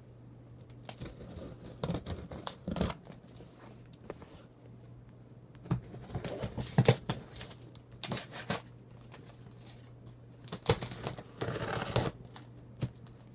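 Buck 119 fixed-blade knife slitting and tearing the packing tape on a cardboard box: irregular rips, scrapes and knocks of blade, tape and cardboard, with a longer stretch of tearing near the end.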